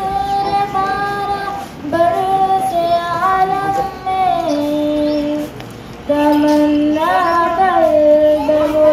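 A girl singing an Urdu naat solo into a handheld microphone, holding long notes with small ornamental turns between them. The melody falls in phrases, with a brief break about five and a half seconds in.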